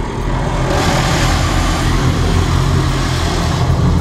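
Car wash water spray hissing against the car's windshield and body, heard from inside the cabin. The spray comes in under a second in and stops shortly before the end, over a steady low rumble.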